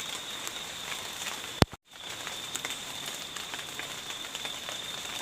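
Steady outdoor background hiss with a constant high-pitched drone. About a second and a half in there is a single sharp click, followed by a moment's dropout.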